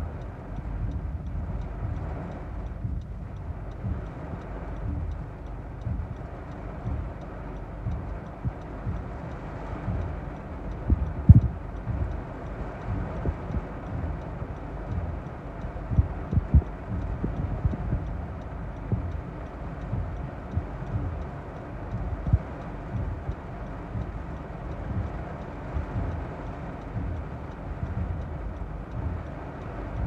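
Strong storm wind gusting against a car and the microphone, a low rumble with irregular thumps and buffets, over torrential rain hissing on the windshield.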